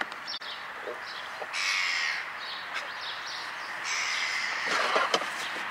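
Two bird calls, about two and a half seconds apart, then a few short knocks near the end as gear is handled in a car boot.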